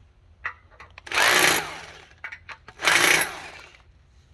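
Power drill run in two short bursts, each about half a second, as the bit is spun briefly through the base-mount holes to mark the drilling spots in the surface below. A few light clicks come between the bursts.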